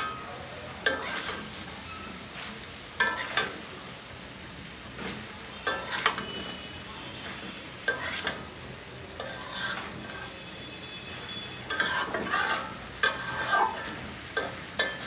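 A flat metal spatula scraping and knocking against an aluminium karahi as cauliflower and potatoes are stir-fried, in irregular strokes a second or two apart and a quick run of them near the end. A steady sizzle runs underneath.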